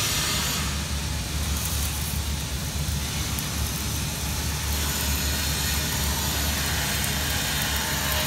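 Steady low machine hum with an even hiss over it, typical of shop machinery running continuously, such as a welding machine's fan or ventilation.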